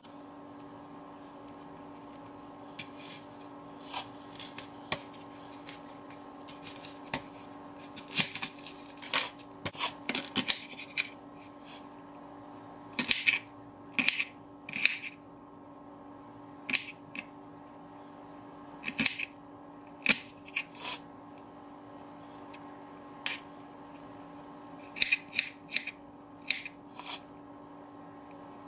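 A chef's knife halving, peeling and chopping an onion on a wooden cutting board: irregular sharp taps of the blade on the board and crunches of onion, coming in clusters, over a steady background hum.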